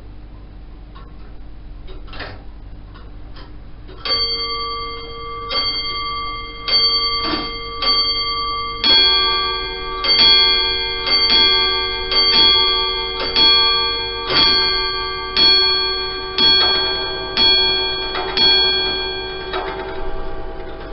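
Comtoise (Morbier) wall clocks ticking, then one clock striking on its bell about four seconds in, at roughly one strike a second. A second clock with a lower-pitched bell joins about five seconds later. The two strike out of step, their bells ringing over each other, until the strikes stop near the end.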